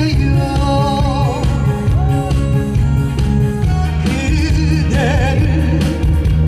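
A man singing live into a handheld microphone over amplified backing music, with vibrato on his held notes.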